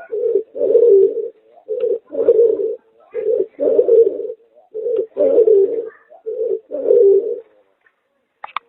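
Merpater, a hybrid of a domestic pigeon and a puter dove, cooing: a short coo followed by a longer coo, repeated five times about every one and a half seconds. A few sharp clicks come near the end.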